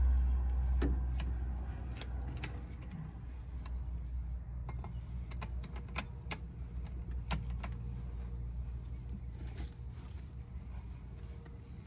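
Low steady engine hum with scattered light metallic clicks and clinks, as a bottle jack lets a stump grinder down onto its track. The hum is loudest in the first second, then drops.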